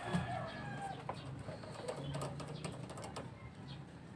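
Birds calling in the background, with short chirps and clucks in the first second, over scattered light clicks and a low steady hum.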